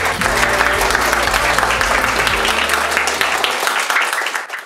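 A crowd applauding, with music underneath whose low notes drop out a little before the end. The whole sound fades out at the very end.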